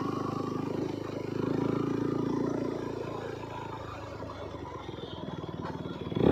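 Single-cylinder sport motorcycle with an aftermarket exhaust running at a steady pace. The engine note swells a little about a second in, then eases off and fades.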